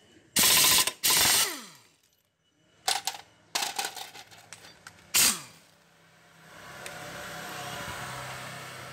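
Pneumatic impact wrench on a Honda Lead 125 scooter's CVT pulley nut: two short bursts in the first second and a half, then another about five seconds in, each winding down with a falling whine, with light metal clicks in between. A quieter steady running sound fills the last few seconds.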